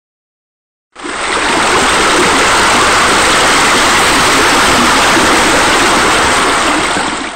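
Steady rush of falling water, a waterfall spilling down a wall into a pool; it starts suddenly about a second in and cuts off near the end.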